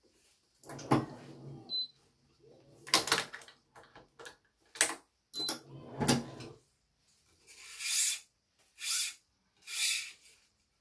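Badminton racket being strung with Yonex BG80 string: clicks and knocks from the stringing machine and clamps, then three swishing pulls about a second apart near the end as the string is drawn through the frame.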